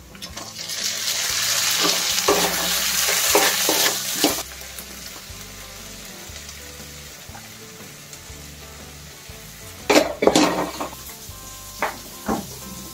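Chopped tomatoes tipped into hot oil in a wok, sizzling loudly for about four seconds with a few stirring strokes, then settling to a low fry. A few sharp knocks of utensils come near the end.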